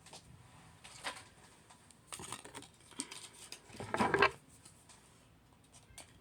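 Rustling and light knocks of small items being handled, with the loudest burst of handling about four seconds in.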